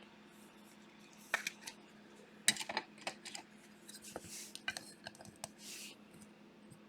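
Trading cards being handled on a table: a few sharp clicks and taps, and two short soft sliding sounds, over a faint steady hum.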